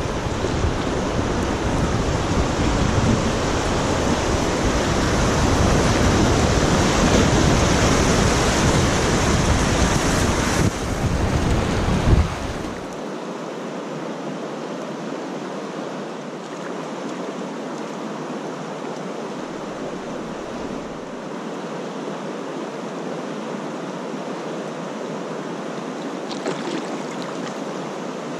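Rushing white water of a river weir's rapids, heard from a kayak, with wind on the microphone. Loud and full for the first twelve seconds or so, then it drops suddenly to a quieter, thinner, steady rush.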